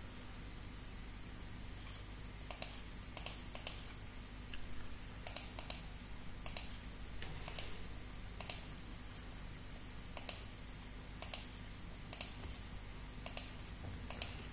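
Scattered clicks from a computer mouse and keyboard, single and in quick pairs, about one every second. A faint steady electrical hum runs underneath.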